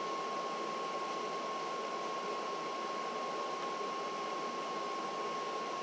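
Steady room noise: an even hiss with a thin, constant high-pitched whine running through it.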